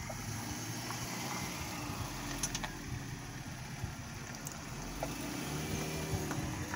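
Steady low rumble of vehicle engines with faint wind noise, a few light clicks.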